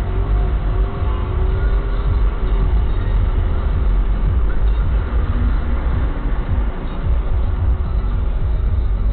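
Car engine and road noise heard as a steady low rumble from inside the cabin as the car pulls away slowly from a stop.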